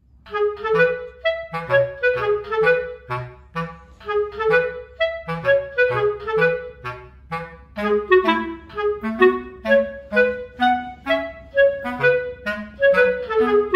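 Upbeat dance track: a melody of short, detached notes, several a second, over a repeating bass line.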